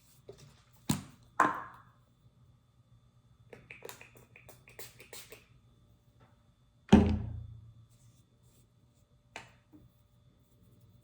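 Small objects being handled and set down on a hard surface: two knocks about a second in, a run of light clicks and rustles around four to five seconds, then one heavy thunk about seven seconds in, the loudest, and a small knock near the end.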